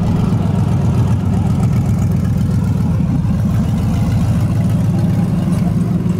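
Burnout pickup truck's engine running at low speed as the truck rolls by and pulls away, a loud, steady, low exhaust rumble with fast even pulsing and no revving.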